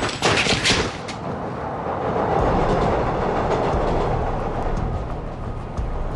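A few sharp hits in the first second, then a steady rumbling noise that grows lower and heavier partway through.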